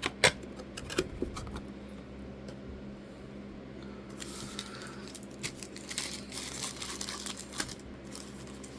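Light handling sounds of trading-card boxes and packs: scattered clicks and taps, with a short stretch of rustling about four seconds in.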